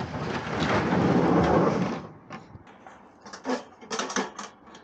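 Handling noise as a wire cage trap is picked up: a rough rushing rumble for about two seconds, then a few light metallic clicks and rattles.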